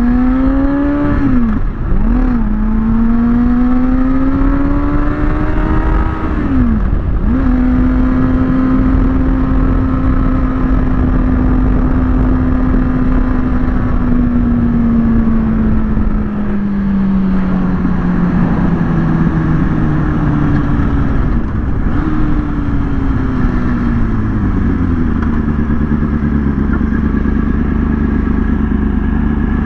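Kawasaki ZX-6R sportbike's inline-four engine pulling hard through the gears, its pitch climbing and dropping sharply at quick upshifts in the first seven seconds. It then holds a steady pitch at cruise, and the revs sink gradually as the rider eases off in the last third, over steady wind rush.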